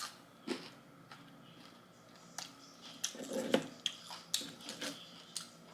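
Eating noises: chewing with scattered mouth clicks and smacks, and a short hum-like voiced sound about three seconds in.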